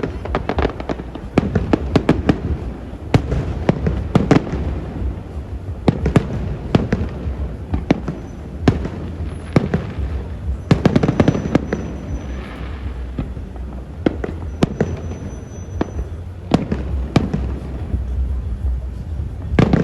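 Fireworks display: a steady run of sharp bangs and crackles from aerial shells bursting, several a second at times, over a continuous low rumble.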